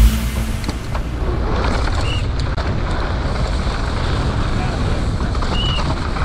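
Outdoor crowd hubbub, many voices at once blending into a steady noise, with two short high chirps about two seconds and five and a half seconds in.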